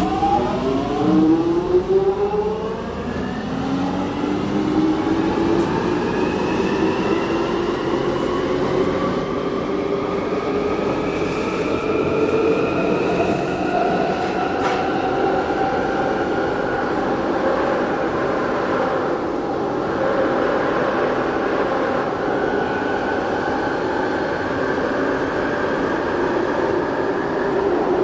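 London Underground 1996 Stock train's traction motors whining as the train accelerates, with several tones rising steeply at first, then climbing slowly and levelling out, over a steady running rumble. A brief click comes about halfway through.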